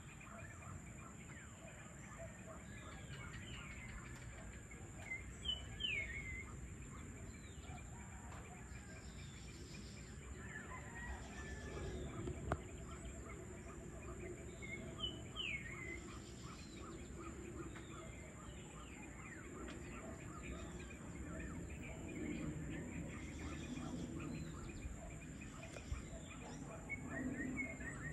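Outdoor evening ambience with birds calling in short, downward-sliding chirps that come in small groups every ten seconds or so. Behind them run a steady high-pitched hum and a constant low background rumble.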